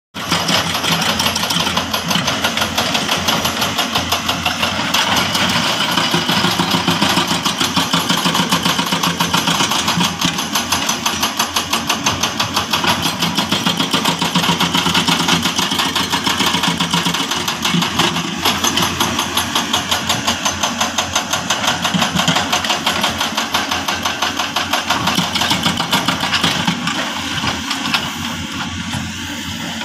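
Heavy construction machine's diesel engine running steadily with a fast, even pulse, loud throughout and easing slightly near the end.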